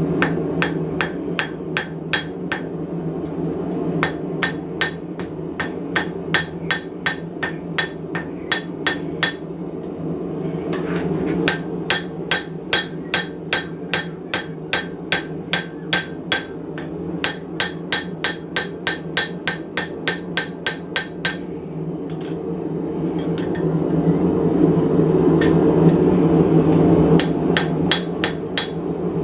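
Hand hammer striking hot steel on an anvil in steady runs of about two blows a second, drawing out a bar, with a short ring after each blow. The hammering stops briefly about ten seconds in and again for several seconds past the twenty-second mark, over a steady low rumble.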